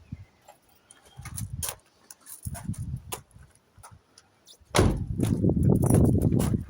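Gusts of wind buffeting the microphone in low rumbles, growing loud about five seconds in, with scattered clicks and knocks of handling around the car.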